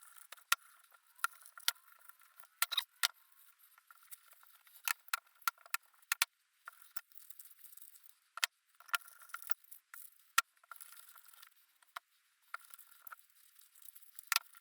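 Small metal engine parts being handled on a workbench: light, irregular clicks and taps, with a faint rustle of handling between them.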